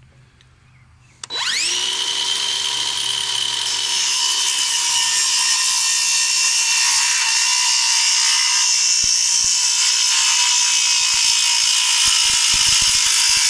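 Craftsman V20 cordless 6.5-inch circular saw starting about a second in with a rising whine, then running steadily as it rips through a damp pine 2x10, growing a little louder about four seconds in.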